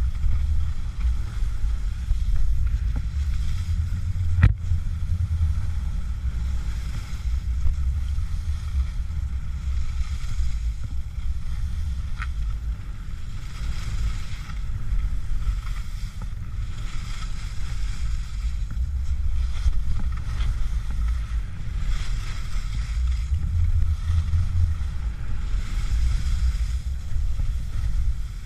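Wind buffeting the microphone of a pole-mounted action camera as the skier runs downhill, a deep rumble that swells and eases, with a fainter hiss of skis sliding on snow. One sharp click about four and a half seconds in.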